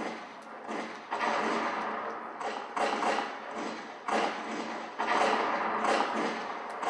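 A series of heavy knocks at an uneven pace, roughly one a second, each ringing on for most of a second before the next.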